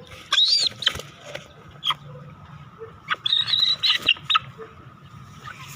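A chicken giving two high squawks, one about a second in and a longer one in the middle, with a few small clicks and handling knocks between them.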